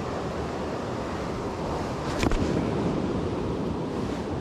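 Steady rush of fast-flowing water in a flooded creek, with one brief click about two seconds in.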